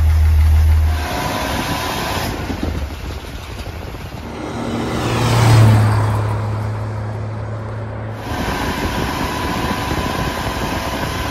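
Old International Harvester Metro Mite engine running steadily, an engine said to have a lot of blow-by. About halfway through, a vehicle passes on the road with a rising and falling rush, and then the engine is heard running again.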